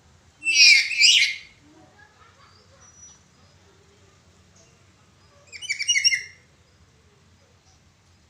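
Black-capped lory giving loud, cracked, screeching calls: two close together about half a second in, then a quick run of calls about six seconds in.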